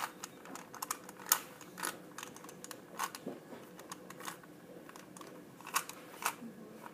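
Rubik's Cube layers being turned by hand in a solve, the plastic pieces clicking in quick, irregular runs.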